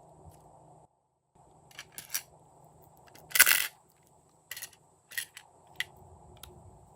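Glossy slime being pressed and worked by hand, giving a string of short sticky pops and crackles, the loudest and longest about three and a half seconds in.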